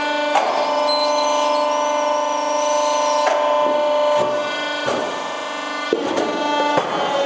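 Polyurethane briquetting press running with a steady, many-toned hum, broken by about six short knocks at which the hum's tone shifts, as a compressed polyurethane foam briquette is pushed out of the die.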